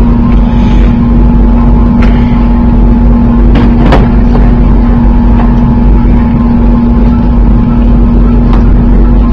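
Loud, steady ventilation noise inside an Airbus A380 cabin, a constant hum with a steady low tone and no change in level. A few sharp knocks cut through it, about two seconds in and twice close together around three and a half to four seconds in.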